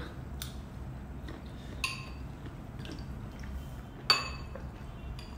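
Metal spoons clinking against ceramic soup bowls during a meal, about three light clinks with a short ring, the loudest about four seconds in.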